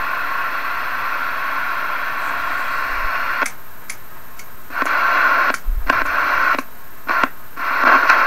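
Steady static hiss from a Johnson Messenger vacuum-tube CB radio's speaker, with no stations coming through. About three and a half seconds in, the hiss starts cutting out and back in several times with sharp clicks as a front-panel knob is turned, then settles back to steady hiss near the end.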